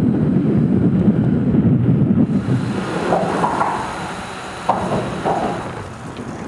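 Wind rumbling on the microphone of a camera carried on a moving bicycle. It is loud for about two and a half seconds and then eases off, with a few faint knocks and a click later on.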